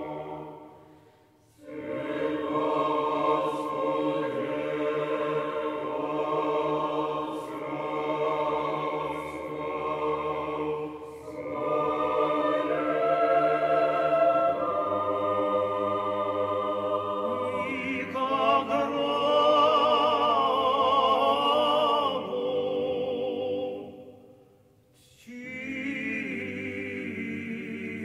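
Choir with bass soloists singing in a historical recording with a muffled top end. The sustained phrases stop for two brief pauses, about a second in and again near the end. A louder passage with strong vibrato comes a little past the middle.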